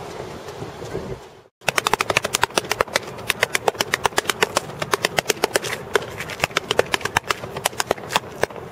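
Outdoor background noise that cuts out about a second and a half in, then a rapid, irregular run of sharp clicks or taps, several each second.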